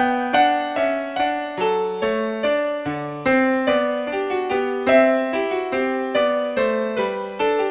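Background music on a piano-like keyboard: a steady run of struck notes and chords, each fading away after it is played.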